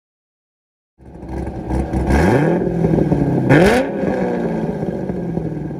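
Car engine revved twice, rising in pitch each time, the second rev louder and sharper, then falling back and running steadily as it fades.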